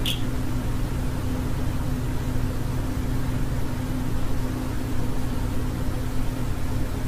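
Steady low electrical hum under a constant hiss, with no bird calls.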